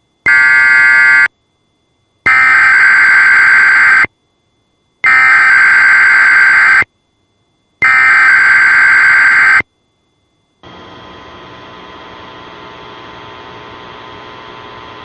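Emergency Alert System (SAME) data header: four loud, buzzy bursts, each a second or two long, separated by one-second silences. About eleven seconds in, a quieter steady weather-radio alert tone begins.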